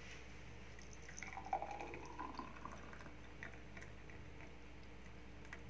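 Thick mango-and-milk drink (aamras) poured in a stream from a steel bowl into a glass tumbler, a faint liquid pouring and splashing, clearest between about one and two and a half seconds in.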